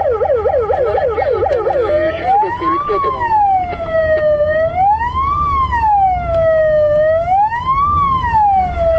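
Police car siren sounding a fast yelp for about two seconds, then switching to a slow wail that rises and falls about every two and a half seconds. A low rumble of the moving car runs underneath.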